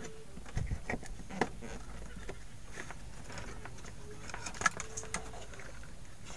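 Light clicking and handling noises from a hair straightener's plastic housing, wires and circuit board being fitted back together by hand, with one sharper click about two-thirds of the way through.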